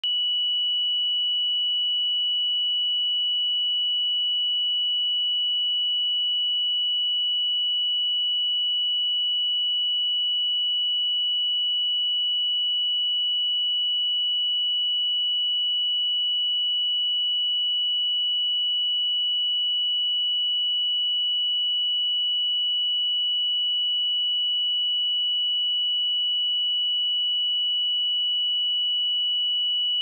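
A pure 2946 Hz sine-wave test tone, held steady at one pitch and level without a break.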